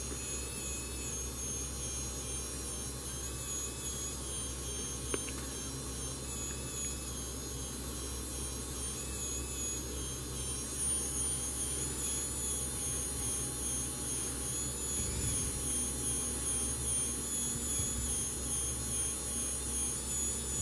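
3D printing pen's small motor running with a steady whir and a thin high whine, a little louder from about halfway through, with a single click about five seconds in.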